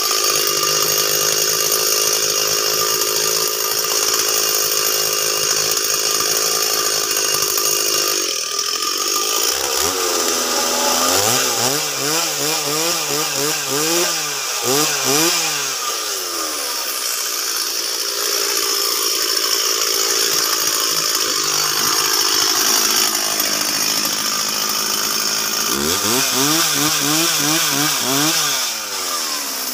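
Stihl MS 360 two-stroke chainsaw cutting lengthwise through meranti timber at full throttle. The engine revs up and down several times in the middle and again near the end, then holds steady at high revs between those stretches.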